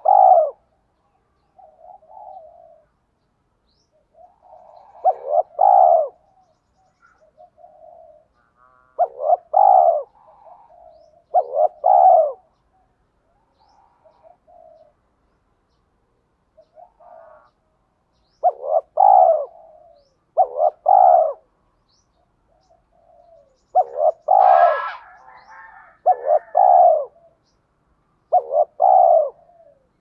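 A spotted dove cooing close to the microphone, repeating its phrase of two or three low coos every couple of seconds. Its deep voice is of the kind Vietnamese keepers call 'giọng thổ pha đồng'. A brief brighter, higher sound cuts in over one phrase late on.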